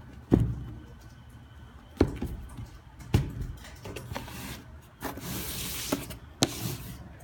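Handling noise as a sneaker and its cardboard shoebox are moved about close to the phone: a few sharp knocks and bumps, with a longer scraping rub about five seconds in.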